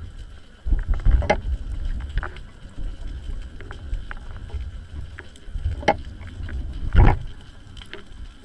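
Underwater sound taken by the submerged camera: a low, uneven rumble of water moving around the housing that swells and fades, with a few sharp clicks and knocks, the loudest near the seven-second mark.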